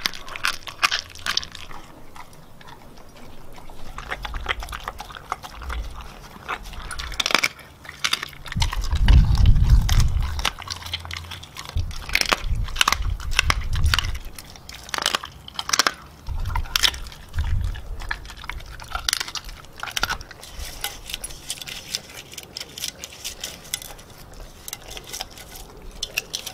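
Siberian Husky chewing and crunching raw meat, with many short, sharp crunches and jaw clicks. A louder low rumbling comes and goes through the middle, strongest about nine seconds in.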